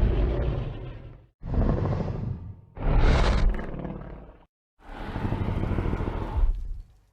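Godzilla monster sound effects played one after another as separate short clips with brief silences between them: deep, roar-like rumbling calls, one rising into a sharp high screech about three seconds in.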